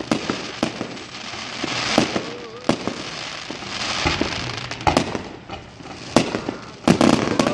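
Aerial fireworks bursting: a string of sharp bangs at uneven intervals, with stretches of dense crackling from glittering shells between them, and the loudest bangs bunched near the end.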